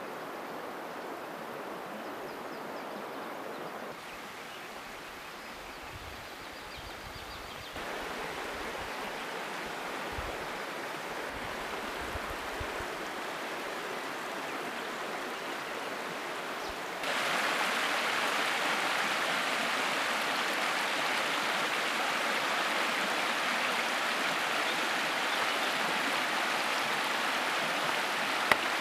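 Shallow mountain stream running over stones, a steady rush of water that gets louder in steps, loudest over the last ten seconds or so.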